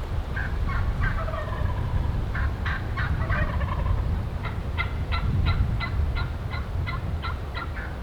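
Rio Grande wild turkey gobbler gobbling close by, followed by a run of about a dozen short, evenly spaced calls, with heavy wind rumbling on the microphone.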